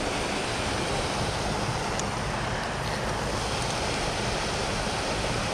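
Creek water rushing steadily over a small rock dam, an even, unbroken wash.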